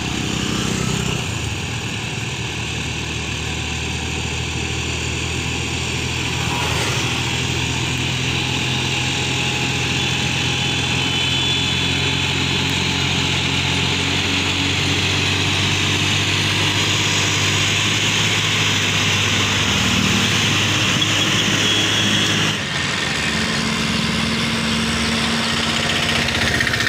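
John Deere tractor's diesel engine running steadily as it hauls two trailers loaded with sugarcane past, its low engine note building as it draws close. A motorcycle passes about a second in, and near the end the sound cuts to another steady engine.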